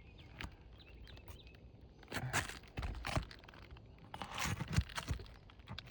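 Scattered knocks, clicks and scraping from a tool prying nails out from under brittle asphalt shingles, with louder crunching and scraping about two seconds in and again between four and five seconds. The shingles are so brittle that the nails tear through them.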